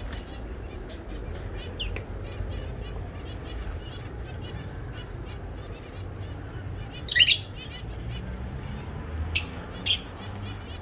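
Caged pet birds (parakeets, lovebirds and finches) chirping: a continuous twitter of small chirps with a few loud, sharp calls, one at the start and a cluster over the last few seconds.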